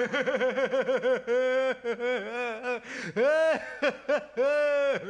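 Cartoon character's wordless vocalising: a quick string of short chuckle-like syllables, then longer warbling sounds that slide up and down in pitch.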